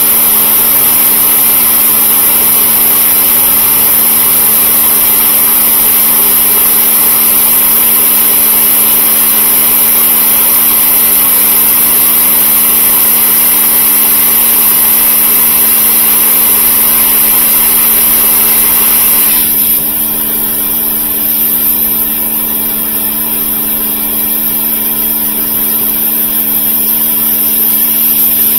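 Pressure washer running, its wand spraying water into a washing machine's plastic tub to fill it for a leak test. The motor hum is steady throughout. About twenty seconds in, the hiss of the spray falls away while the hum goes on.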